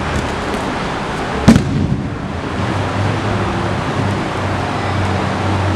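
A person thrown onto grappling mats lands with one loud thud about a second and a half in, over a steady low hum.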